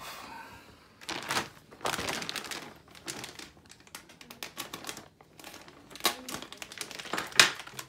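Clear plastic bag crinkling and rustling as it is handled and lifted out of a cardboard box, in irregular crackles, the sharpest one near the end.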